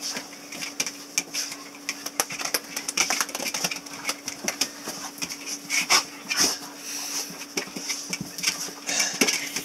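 Two dogs spinning and scuffling around excitedly, with many quick clicks and rattles from their claws on a hard floor.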